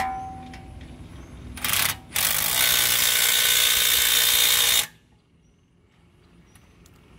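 Cordless impact wrench hammering on a front suspension bolt of the new lower control arm to tighten it: a short burst, then a run of about two and a half seconds that cuts off sharply. A brief metal clink sounds right at the start.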